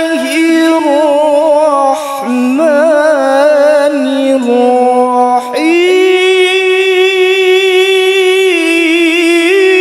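A man reciting the Qur'an in the melodic tilawah style: a single male voice with wavering melismatic ornaments, a brief break about five and a half seconds in, then a long higher note held with slow ornaments.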